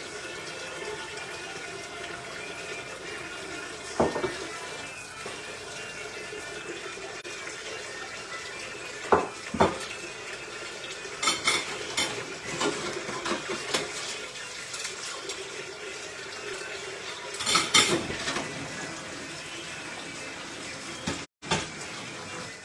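Kitchen clatter of pots and dishes: a handful of sharp knocks and clinks, some in quick clusters, over a steady hiss. The sound cuts out for a moment near the end.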